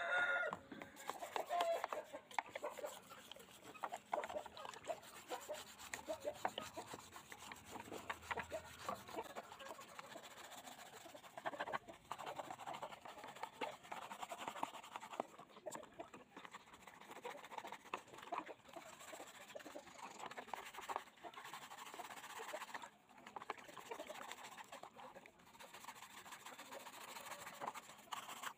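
Hand scraping and rubbing on a part: a dense, irregular run of small scrapes and clicks, with no motor running.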